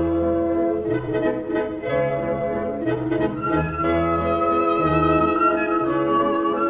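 Orchestral music with brass and bowed strings playing held notes over a low bass line that comes and goes.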